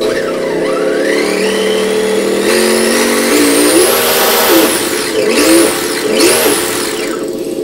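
Electronic engine-sound module in an electric RC drift car playing a simulated car engine as the transmitter throttle is pulled. The note climbs in steps, like shifting up through the gears, to a high scream about four seconds in, then drops and revs up twice more. It sounds somewhat like an F1 car, which the owner suspects is a wrong setting.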